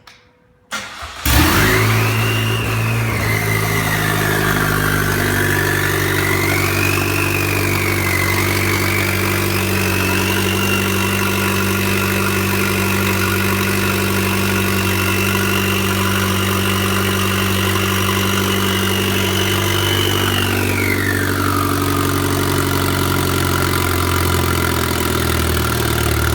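Chevrolet Cruze's turbocharged Ecotec four-cylinder cranks briefly, catches about a second in and idles steadily, with a high turbo whistle over it that rises, wavers, holds a steady tone and then glides down a few seconds before the end. The new turbo runs open, with no intake or exhaust pipework connected, so its whistle is heard bare.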